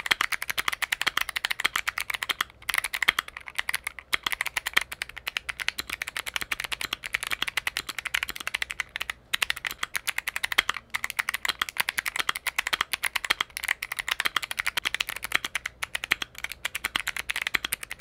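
Fast typing sound test on a clicky mechanical keyboard with Kailh Box Jade-type click-bar switches: a dense, rapid run of sharp clicks with only brief pauses.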